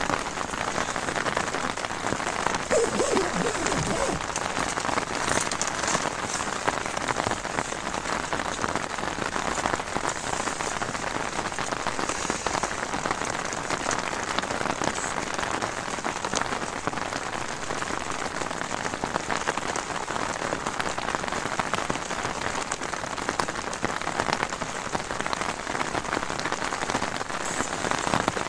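Heavy rain pattering steadily and densely on the tent fabric, heard from inside the tent.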